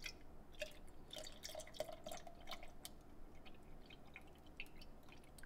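Dark liquid pouring in a thin stream from a carton into a tall glass over ice, with many small splashing ticks.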